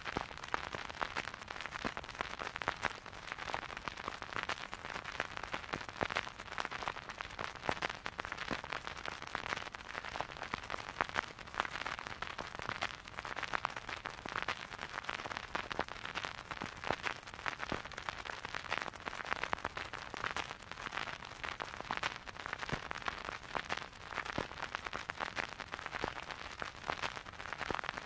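Vinyl record surface noise: the stylus riding the groove with no music, a steady crackle of dense small clicks and scattered louder pops over a soft hiss.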